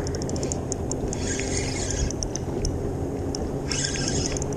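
Spinning reel clicking in runs of quick, even ticks while a hooked walleye is played, twice running into a short buzz. Water lapping and wind run underneath.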